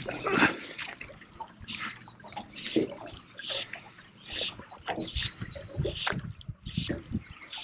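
River water splashing and trickling in irregular short bursts.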